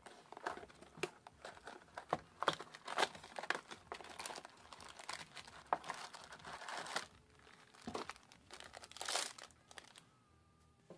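Foil booster pack wrappers crinkling and tearing as trading card packs are opened and handled, in a run of crackly rustles that dies down shortly before the end.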